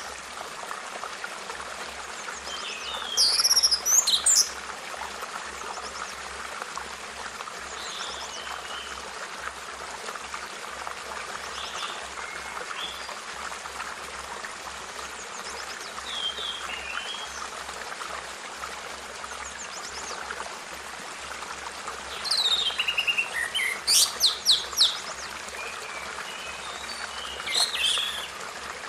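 Birds chirping and calling in scattered bouts, loudest about three seconds in and again near the end, over a steady rushing hiss.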